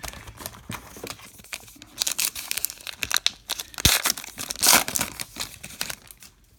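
Foil wrapper of a baseball card pack crinkling and being torn open by hand. The loudest rips and crackles come about two, four and five seconds in.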